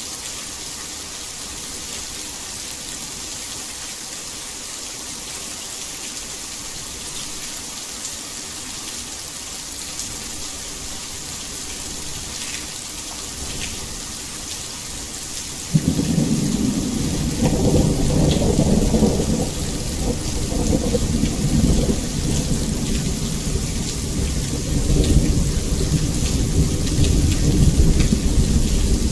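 Heavy rain falling in a steady hiss. About halfway through, a deep rumble of thunder comes in suddenly and keeps rolling under the rain.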